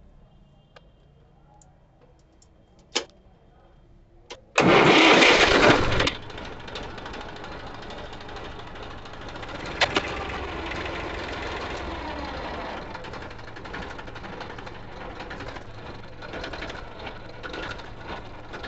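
Eicher 380 tractor's diesel engine cranked by its starter after a couple of clicks, catching with a loud burst about four and a half seconds in, then running steadily at idle.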